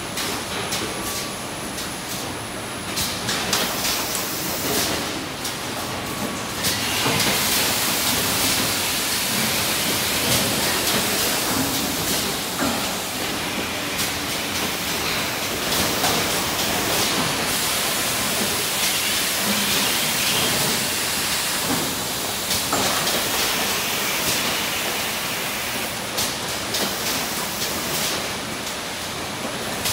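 Wraparound case packer and its conveyor line running: a steady, dense machinery hiss with many small clicks and clatters, louder from about seven seconds in.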